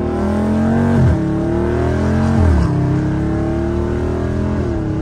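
Catless Dodge Charger Scat Pack's 6.4-litre HEMI V8 exhaust, heard from the cabin under part throttle while accelerating. The engine note climbs and drops sharply twice, about one and two and a half seconds in, then climbs slowly and steadily.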